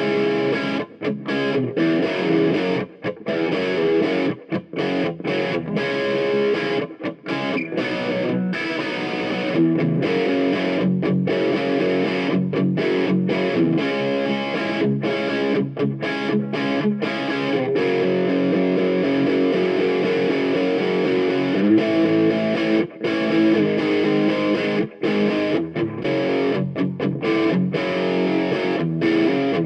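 Background music led by distorted electric guitar, broken by frequent short gaps.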